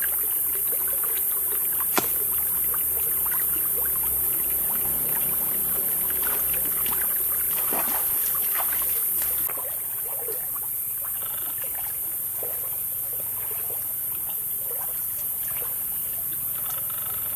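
Feet splashing through shallow creek water about eight seconds in, over a steady hiss of flowing water, with one sharp snap about two seconds in.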